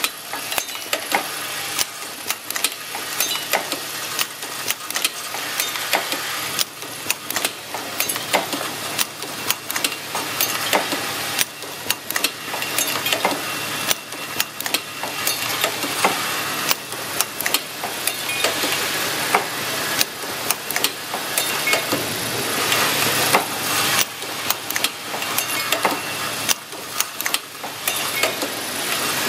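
Automatic handle-shank assembly machine running: a steady buzzing hum from its vibratory bowl feeders under frequent, irregular clacks of pneumatic cylinders and metal parts being fed and pressed together.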